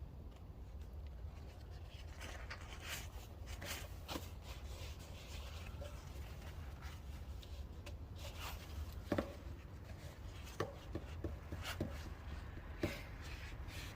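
Hands fitting a part onto a tractor: scattered light clicks and knocks of metal parts being handled, a small cluster of taps about two thirds of the way through, over a low steady hum.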